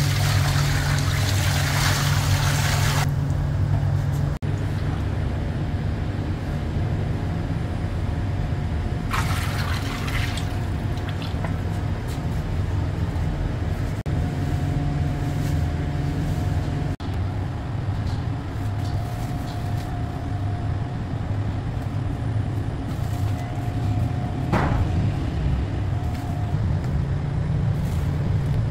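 Liquid poured from a plastic bucket into a steel dough-mixer bowl, splashing for about three seconds at the start, with a second short splash later. A steady low machine hum runs underneath.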